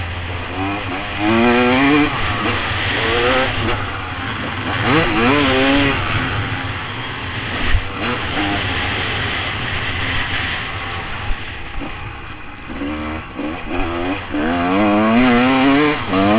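Motocross dirt bike engine revving hard and shifting through the gears, its pitch climbing again and again as it pulls on each gear, heard up close from the bike. There is a single sharp knock about eight seconds in.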